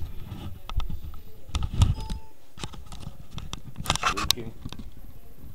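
Handling noise from a handheld camera being moved about: low rumbling with scattered sharp clicks and knocks, busiest about four seconds in, and a short faint tone about two seconds in.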